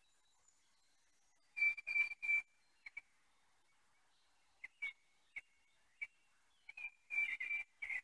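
A bird chirping in short, high calls, a quick cluster of them about a second and a half in, single chirps scattered through the middle, and another cluster near the end.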